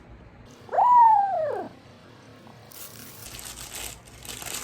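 A single animal whine about a second in, rising briefly and then falling in pitch over about a second. Faint rustling follows near the end.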